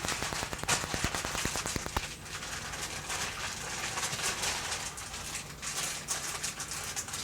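Flour-and-olive-oil roux sizzling and bubbling lightly in a pan, a steady fine crackle, with a few sharper clicks in the first couple of seconds.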